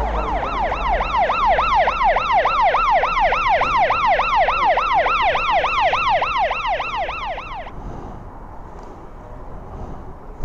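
Police car siren on yelp: fast rising-and-falling wails, about three a second, loud, cutting off suddenly about seven and a half seconds in.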